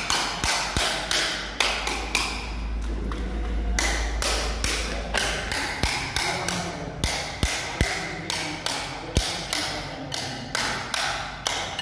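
Hammer striking repeatedly at about two blows a second, each a sharp tap with a slight metallic ring, with a brief lull about two seconds in.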